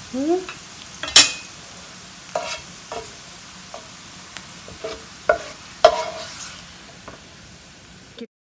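Onion slices sizzling in hot oil in an electric skillet while a spatula stirs and scrapes them across the pan, with several sharp scrapes and knocks of the spatula against the pan, the loudest about a second in. The sound cuts off suddenly near the end.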